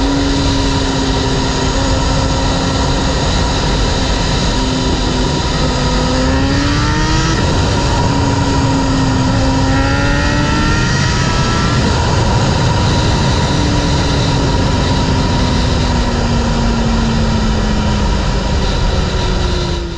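Kawasaki ZX-6R's 636 cc inline-four engine pulling hard under a heavy rush of riding wind. Its note climbs sharply about six seconds in and again about ten seconds in, then sinks slowly as the bike eases off toward the end.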